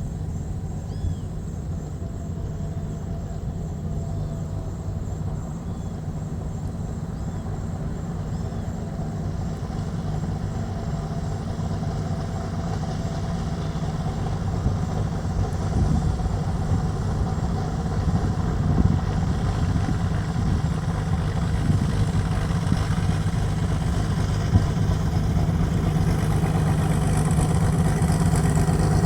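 Aircraft engines droning steadily and growing gradually louder as the aircraft comes closer.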